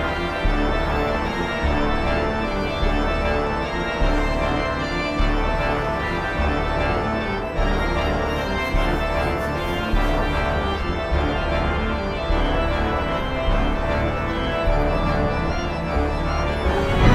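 Background film-score music led by an organ playing sustained chords over a low note that pulses about once a second.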